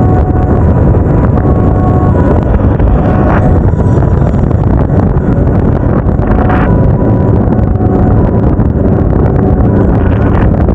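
Riding a motorcycle: wind rushing over the action camera's microphone and the engine running steadily, loud throughout. There are a few brief beeps.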